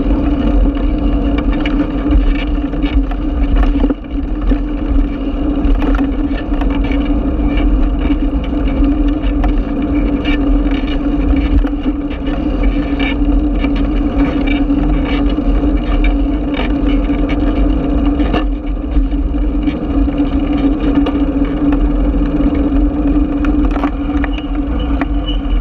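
Riding noise picked up by a bicycle-mounted camera: a steady hum over a low rumble of wind and tyres on the road, with scattered sharp rattling clicks from the bike.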